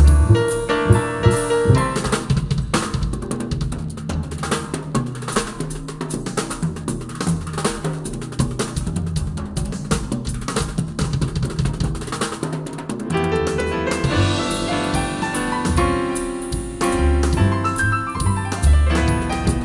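Drum kit playing a busy instrumental passage in a jazz-band arrangement: rapid stick strokes on snare, toms, bass drum and cymbals carry the music for most of the stretch, with piano and band coming back in about two-thirds of the way through.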